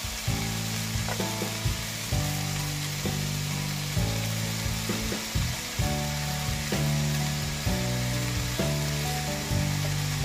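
Cubed pork sizzling in a pan of frying onion and tomato as it is stirred in, with a spatula clacking and scraping against the pan now and then. Soft background music with held low notes plays underneath.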